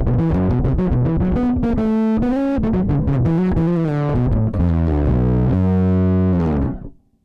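Electric bass played through a low-gain blues-style overdrive, giving a warm, gritty tone. It plays a quick run of notes, then holds a thick sustained note that is cut off sharply near the end.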